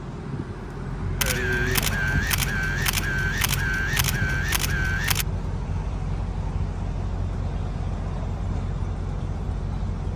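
Phone camera shooting a burst of photos: rapid shutter clicks, about four a second, starting about a second in and stopping after about four seconds, over a steady low rumble of idling vehicles.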